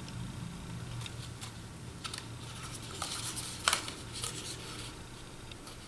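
Patterned paper being handled and pressed around a small paper cup: scattered light rustles and crinkles, one a little louder near the middle, over a low steady hum.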